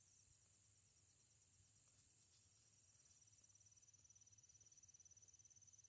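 Faint crickets chirping: a steady high trill that stops about two seconds in, and a fast, evenly pulsed chirping that carries on.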